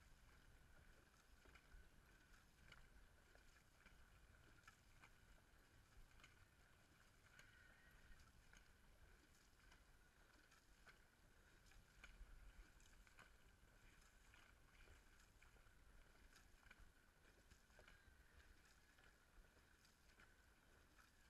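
Near silence: only faint water noise and scattered light clicks from a dragon boat being paddled.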